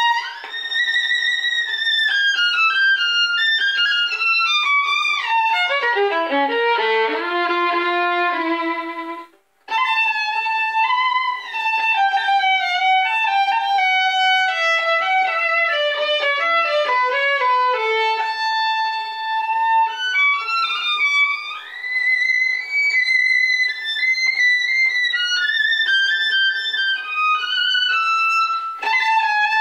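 Solo violin playing a tango melody with sustained, bowed notes and a fast falling run, broken by a brief pause about nine seconds in.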